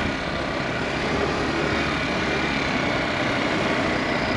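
Steady rush of wind on the microphone over a motorcycle engine running, heard from the pillion seat of a moving motorcycle.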